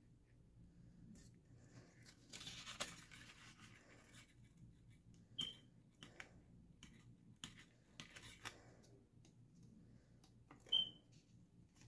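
Faint handling of paper and card as papertoy pieces are fitted and pressed together: soft tearing-like rustle about two to three seconds in, scattered small clicks and taps, and two brief high squeaks.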